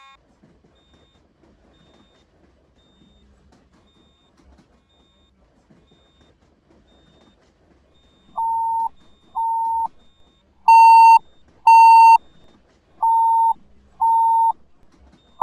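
Quiet background for about eight seconds. Then a fire alarm's evacuation speakers sound a steady beeping tone: short beeps in pairs, a pair about every two and a half seconds, with two beeps near the middle louder than the rest. This is the alarm tone that alternates with the recorded evacuation message during a fire alarm test.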